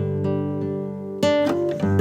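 Intro music on acoustic guitar: sustained chords with a fresh strum about a second in.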